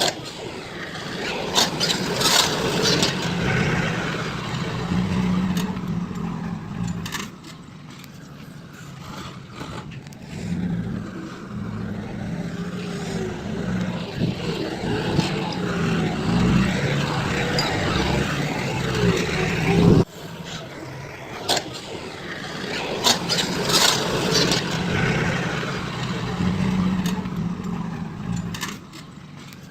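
Heavy construction machinery engine running, rising and falling in loudness, with an abrupt break about twenty seconds in before it builds again.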